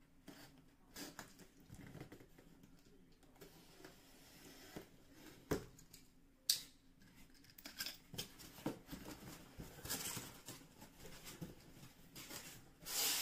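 A delivered parcel being opened by hand: faint scattered scraping, rustling and small clicks of packaging being handled, with two sharp clicks about halfway through and louder rustling near the end.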